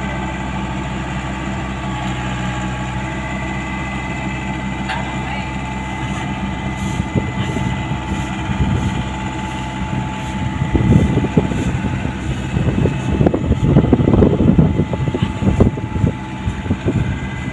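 Komatsu PC75UU mini excavator's diesel engine running steadily, with a louder, uneven rumble building from about ten seconds in as the machine works on the truck bed.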